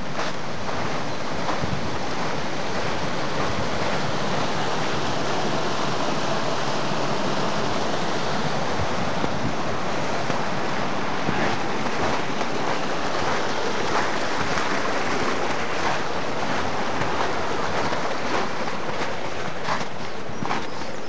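Small brook running over stones between snowy banks: a steady rushing of water.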